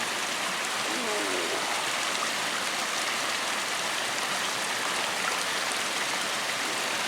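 Running water of a stream or irrigation channel rushing steadily.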